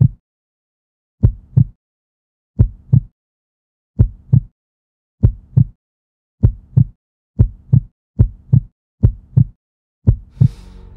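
A heartbeat sound effect: deep double thumps (lub-dub), about ten of them, with silence between that shortens as the beat speeds up from about one every 1.3 seconds to nearly one a second. A rush of noise comes in just before the end.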